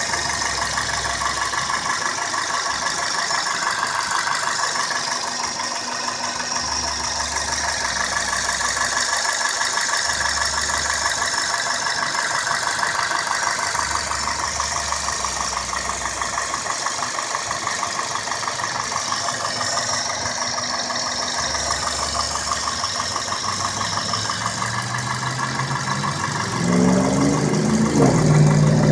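Toyota 1ZZ-FE four-cylinder engine of a 2002 Corolla S idling, with a rapid, steady ticking or clicking from the engine. Near the end it gets louder, with a rising note.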